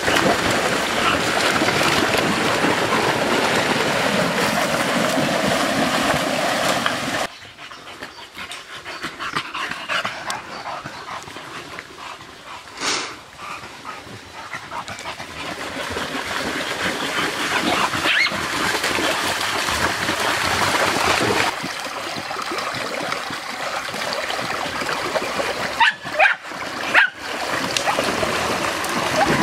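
Continental Bulldogs splashing and wading through a shallow creek over the sound of the moving water, with occasional dog whimpers and yips and a few sharp yelps near the end.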